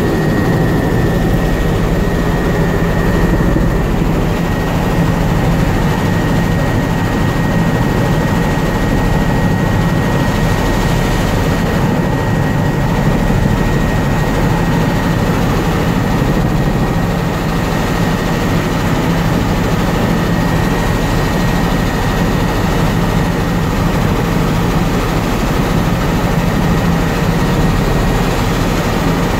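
Helicopter engine and rotor noise heard from inside the cabin in flight: a loud, steady drone with a thin, high whine held throughout.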